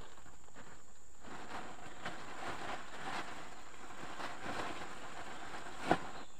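Hands sloshing and rummaging through muddy ditch water and mud while searching for fish, an uneven splashing that starts about a second in, with one sharper splash or knock near the end.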